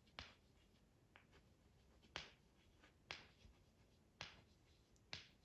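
Faint, short strokes of a pen or marker on paper drawing leaves, about one stroke a second, six in all.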